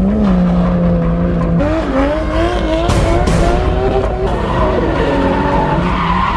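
Drift cars sliding sideways: engines revving hard, their pitch repeatedly climbing and dropping back, over a continuous tyre squeal.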